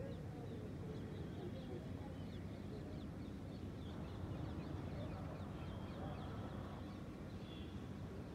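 Many short, high bird chirps scattered throughout, over a steady low rumble of outdoor city ambience.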